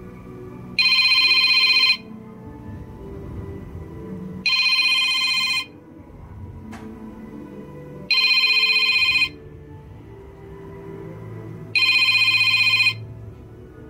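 Electronic trilling ring tone from an alarm, sounding in four loud bursts of about a second each, roughly every three and a half seconds, over quieter background music.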